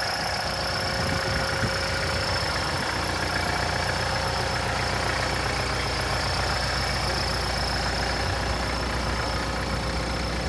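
Kubota compact tractor's diesel engine idling steadily.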